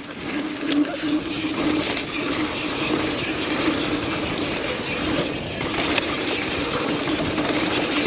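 Yeti SB150 mountain bike riding fast down a flowy dirt trail: a steady rush of tyre and wind noise.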